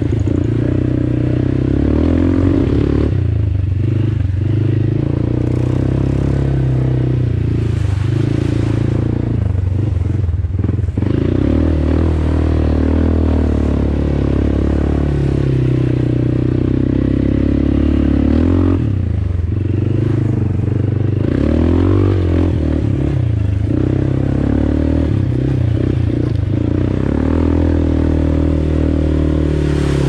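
Kymco Maxxer quad's engine running under a rider's changing throttle on a bumpy dirt trail, its note rising and falling and easing off several times, with rattling and scraping from the machine over the ruts.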